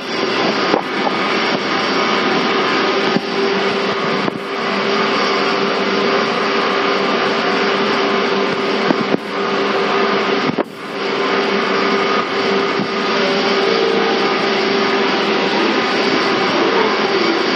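Running noise heard inside a 485 series electric train's motor car: a steady rush of wheels on rail with a steady whine from the traction motors and gearing, broken by a few sharp clicks.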